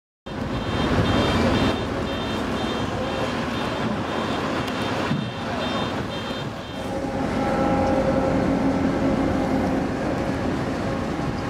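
A vehicle warning beeper sounding a fast run of short high beeps, about three a second, over the steady rumble of heavy machinery. The beeping stops about seven seconds in, leaving a steady machine hum with several tones.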